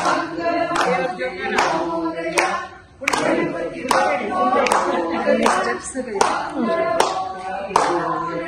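A group of people singing a devotional chant together, clapping their hands in time about once every three-quarters of a second. The singing breaks off briefly just before three seconds in, then picks up again.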